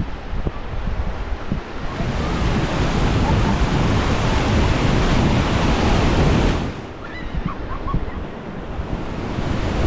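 Whitewater rushing and splashing around a raft in river rapids, with wind buffeting the microphone. The rush eases for a couple of seconds about two-thirds of the way through, then builds again.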